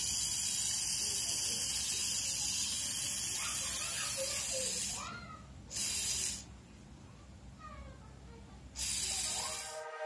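Small solar-powered DC motor of a toy wheeler whirring with a high hiss, cutting out about five seconds in, restarting briefly around six seconds, and running again near nine seconds.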